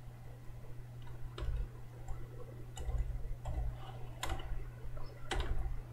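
Scattered, irregular clicks of a computer keyboard and mouse, about one a second, over a steady low hum.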